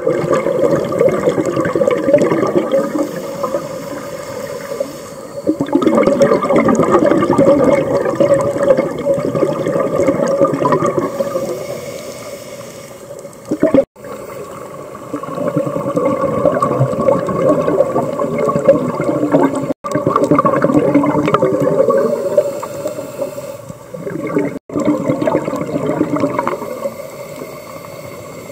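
Underwater scuba sound: divers' exhaled bubbles from their regulators gurgling and rushing past the camera. The sound swells and fades every few seconds and cuts out briefly three times.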